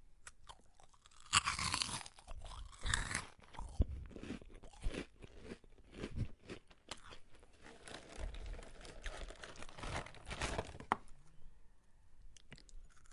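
Crisp crunching close to the microphone, in irregular bursts of crackle. The loudest crunches come about a second and a half in, around three seconds in and near ten seconds in.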